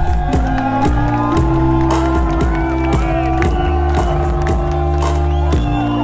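Background music with a steady beat and held bass notes.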